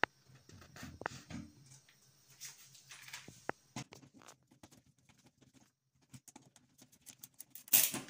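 A screwdriver driving a self-tapping screw through a metal medal holder into a drywall anchor: faint scattered clicks and scrapes, a run of quick ticks, then a louder scrape near the end.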